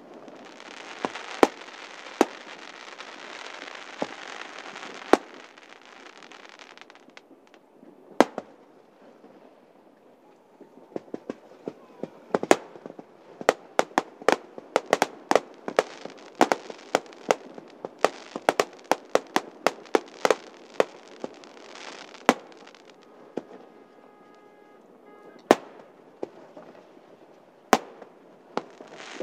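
Aerial fireworks display: a hissing crackle over the first several seconds with single sharp shell bursts, then a fast volley of bangs through the middle, then scattered bangs near the end. A brief steady pitched tone sounds about three-quarters of the way through.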